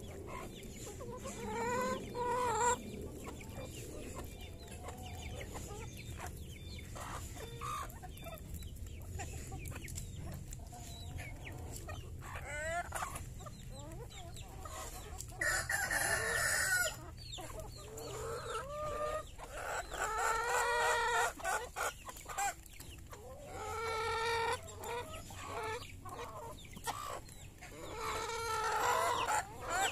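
A flock of chickens clucking and calling while pecking at feed. Several longer drawn-out calls come about halfway through and again near the end.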